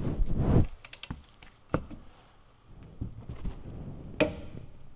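Clothing rubbing close against the microphone, then a few scattered sharp clicks and taps as the torque wrench and socket are handled on the axle nut.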